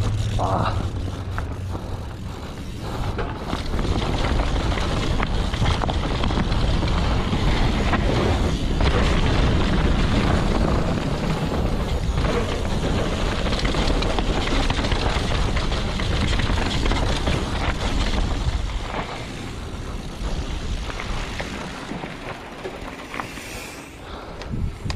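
Mountain bike descending a dirt trail at speed: wind buffeting the camera microphone as a steady low rumble, over tyres running on dirt and gravel and the bike rattling over bumps. The rumble eases off about two-thirds of the way through as the bike slows.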